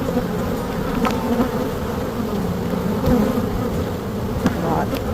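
Honey bees buzzing around an open hive: a steady, dense hum. A few faint clicks sound about one, three and five seconds in.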